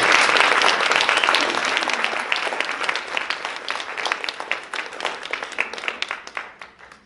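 Audience applauding, many hands clapping together, gradually dying away and stopping near the end.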